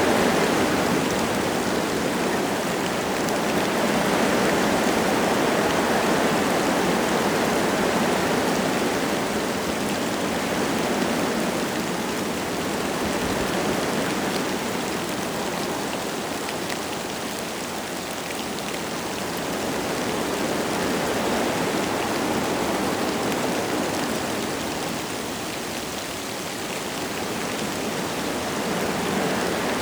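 Wind gusting through forest trees with light rain falling, a steady rushing that swells and eases in slow waves.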